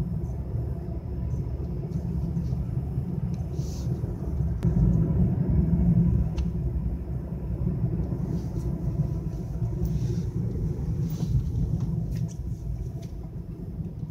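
Low road and engine rumble of a car driving, heard from inside the cabin, swelling a little about five seconds in.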